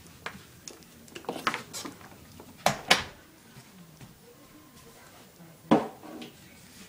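A few scattered knocks and clicks over quiet room noise, the two sharpest close together about three seconds in and another near the end.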